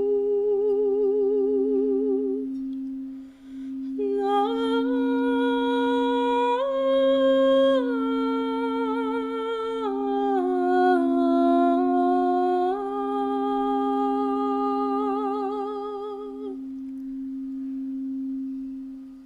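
A woman's wordless singing, or toning, in long held notes with a wavering vibrato that step up and down in pitch, over a steady pure drone tone. The voice breaks off briefly around three seconds in and stops a few seconds before the end, leaving the drone alone.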